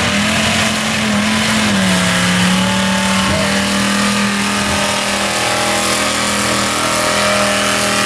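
1979 Ford F-250 mud truck's 472-cubic-inch V8 held at high revs under full load as the truck drives through the mud pit, a loud steady engine note. The pitch dips slightly about two seconds in, then holds level.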